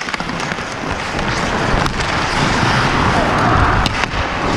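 Hockey skates carving and scraping across the ice at speed, with a low rumble of moving air on the helmet camera's microphone. A couple of sharp clacks, about two and four seconds in.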